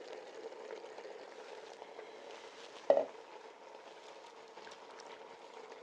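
Low sizzling from an Instant Pot's inner pot on sauté mode, with a wire whisk stirring in a stainless steel bowl and faint light ticks. One sharp metal clink about three seconds in.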